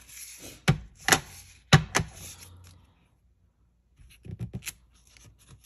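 Stamping supplies handled on a craft table: four sharp taps and knocks in the first two seconds, then a few light ticks near the end.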